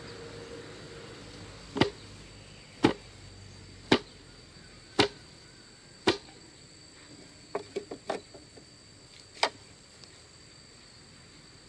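Sharp strikes on bamboo, about one a second for five blows, then a quick run of lighter taps and one more strike. A steady high insect buzz runs underneath.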